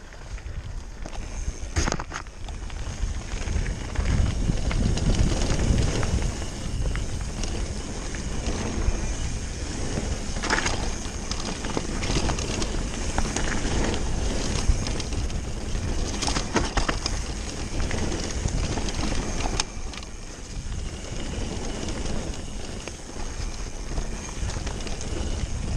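Mountain bike descending a dirt and gravel trail at speed: steady wind rumble on the microphone and tyre noise over the ground, with several sharp knocks as the bike hits bumps.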